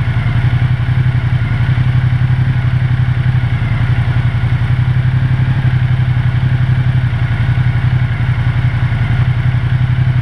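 Ducati Multistrada 1200 Enduro's twin-cylinder engine idling steadily through its stock exhaust, catalytic converter still fitted, with an even, unchanging beat.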